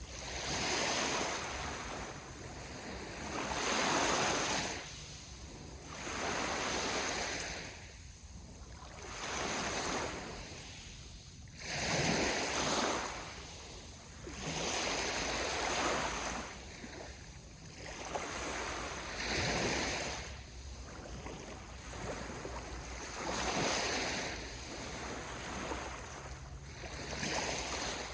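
Ocean waves breaking and washing on the shore, the surf swelling and falling back every couple of seconds.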